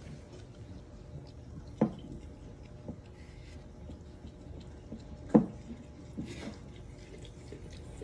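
French bulldog licking the inside of a jug, a run of small wet clicks and laps, with two sharp knocks against the jug about two seconds and five seconds in.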